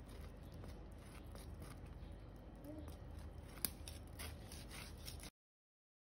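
A hand blade cutting through a large mrigal carp's flesh and scales: faint snips and clicks, with one sharp click about three and a half seconds in. The sound stops abruptly near the end.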